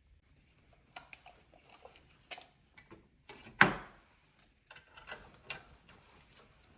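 Irregular clicks and knocks of hard objects being handled, with one louder clunk about halfway through that rings briefly.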